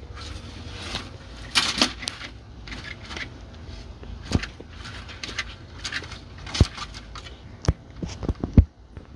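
Scattered sharp clicks and knocks from metal feeding tongs and monitor lizards moving on the wooden floor of their enclosure, with a brief rustling scrape about a second and a half in and the loudest knock near the end, over a low steady rumble.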